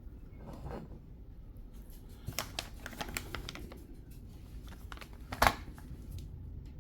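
Small brass wheel-weight rings for an RC crawler being handled and set on a scale to weigh them: a run of small clicks and taps, then one sharper knock about five and a half seconds in.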